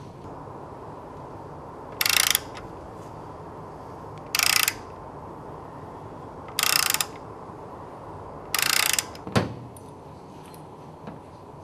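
Ratchet turning the threaded spindle of an oil seal mounting tool to press a crankshaft oil seal into its housing: four short bursts of rapid clicking about two seconds apart, then a single sharp click.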